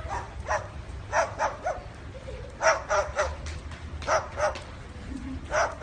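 A dog barking in short yaps, about a dozen in quick clusters of two or three.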